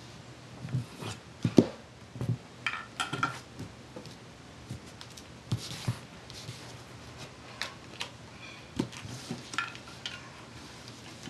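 Scattered clicks and knocks of plastic toys being picked up, moved and set down, with handling bumps. The loudest knock comes about one and a half seconds in.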